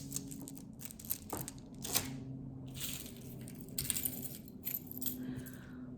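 Costume jewelry being handled and sorted: irregular small clicks and rustling as pieces are picked up and set down, over a faint steady hum.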